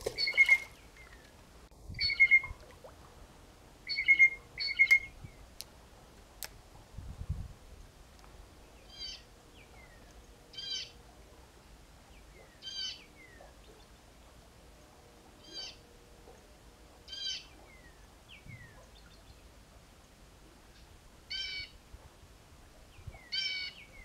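Bird calls dubbed in as a sound effect rather than recorded live: four loud calls in the first five seconds, then a short chirp repeated every one to two seconds.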